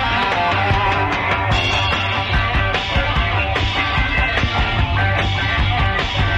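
Live rock band playing an instrumental passage: electric guitars over bass and a steady drum beat. It is a soundboard recording, taken straight from the mixing board.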